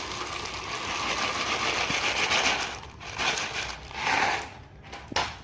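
Dry macaroni pasta pouring out of its packet with a dense rattling clatter for about three seconds, then three shorter rattles as the last pieces are shaken out.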